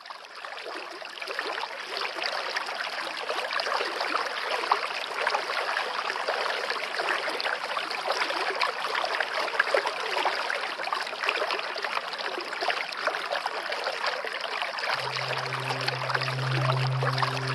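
Steady running water, like a babbling stream, with a fine trickling texture. About fifteen seconds in, a low sustained musical drone comes in beneath it.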